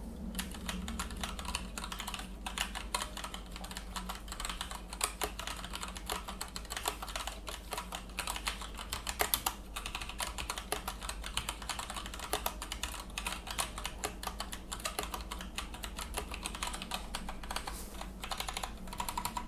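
Steady, fast typing on a Modecom Volcano Lanparty 2 RGB tenkeyless mechanical keyboard with Gateron Brown tactile switches and ABS keycaps: a continuous run of key clacks, several a second, with no metallic ping.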